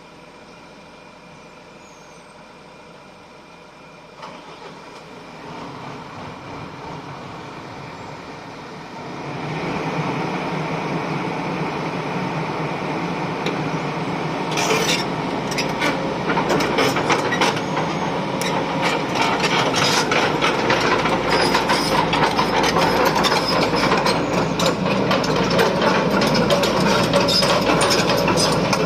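Excavator machinery running with dense metallic clattering and rapid clicking. It grows louder in steps, about four seconds in and again around nine seconds in, then stays loud.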